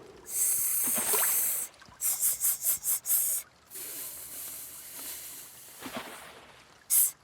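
Cartoon sound effects made of hissing bursts: a long hiss, then a quick run of about six short hisses, a softer drawn-out hiss, and one last short hiss near the end.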